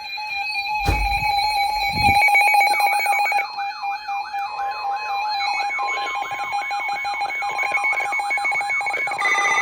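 Electronic alert tones: a steady high tone held throughout, with a couple of low thuds in the first two seconds, then a warbling tone that sweeps up and down about twice a second.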